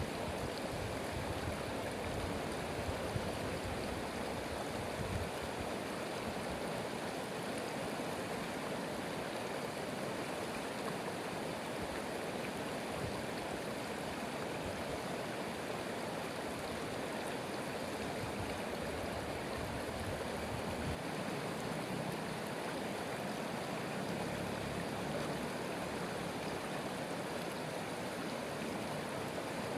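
Stream water flowing steadily over rocks, an even rush and babble without change.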